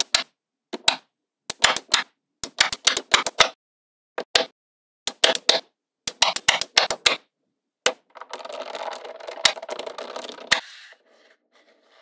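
Magnetic balls snapping onto a magnetic-ball build in quick clusters of sharp clicks, about one cluster a second. About eight seconds in, the clicks give way to a couple of seconds of steady rustling and scraping, with a few clicks mixed in, as the slab is shifted on a paper sheet.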